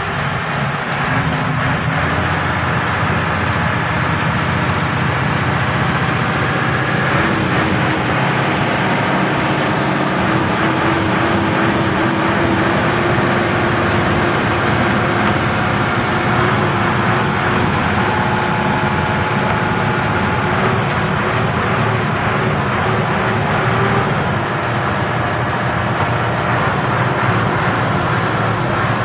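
Truck's diesel engine running steadily under way, heard from inside the cab, its pitch climbing slowly over the first several seconds and then holding. A steady hiss of rain and road noise runs under it.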